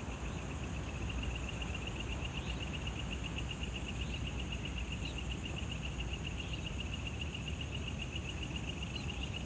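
Night insects calling without a break: a cricket-type insect gives a rapid pulsing trill, with a thinner, higher steady drone of other insects above it and a low rumble underneath.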